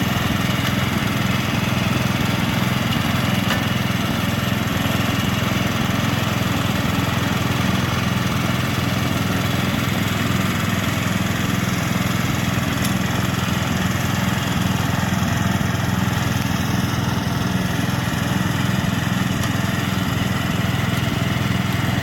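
Small engine of a riding lawn mower or lawn tractor running steadily at an even speed.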